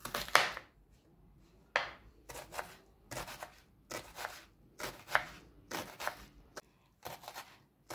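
Knife chopping a medium onion into small pieces in short, irregular strokes, about two a second, with a brief pause about a second in.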